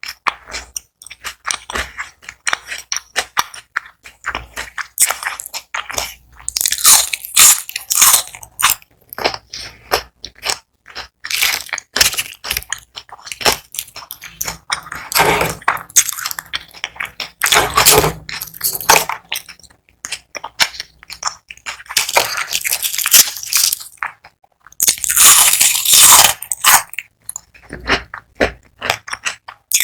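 Close-miked crunching and chewing of crispy fried onion rings: bites and chews come thick and fast, with louder bursts of crunching several times.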